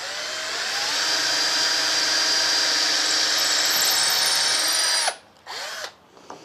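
Cordless drill spinning up and drilling a hole into a knotty alder door frame, its motor whine rising at the start and then running steadily for about five seconds before cutting off. A brief second burst follows just after.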